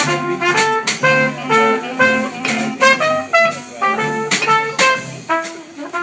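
Small jazz combo playing a tune: trumpet and clarinet on the melody over electric guitar, upright double bass and drums, with a steady beat of drum and cymbal hits. The low bass notes drop out a little after five seconds in.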